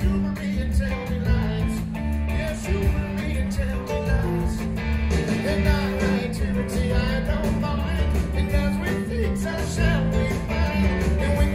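Rock song with electric guitar, bass and drums, and a singing voice.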